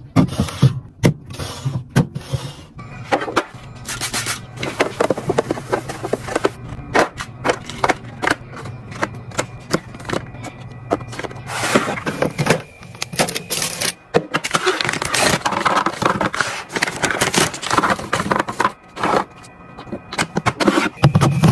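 Restocking sounds from filling a mini fridge: many quick clicks, knocks and scrapes of drink containers and packaged snacks being handled and set in place, with rustling of packaging.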